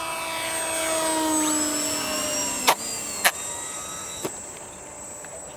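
Electric motor and propeller of an RC trainer plane running at full power through the launch, its pitch sinking steadily as the motor loses power, which the owner puts down to a flat battery. Then come two sharp knocks about half a second apart as the plane comes down, and a lighter knock a second later.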